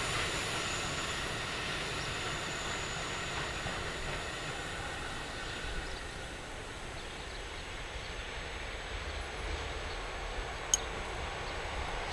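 A freight train running away into the distance, the noise of its wagons on the rails fading to a low rumble, with a faint high whine dying away with it. A single sharp click near the end.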